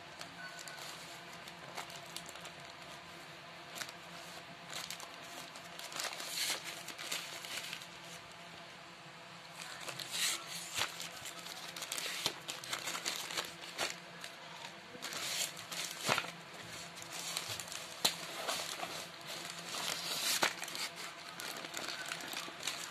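Plastic courier mailer bag crinkling as hands handle it and pull it open, in irregular crackles that get busier and louder about ten seconds in.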